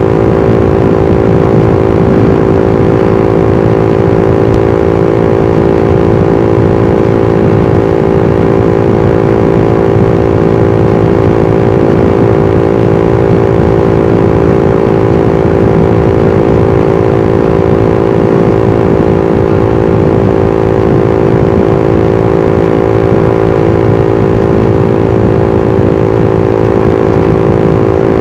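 Suzuki GSX-R150's single-cylinder four-stroke engine and exhaust running at a steady, unchanging pitch while the motorcycle cruises at constant speed.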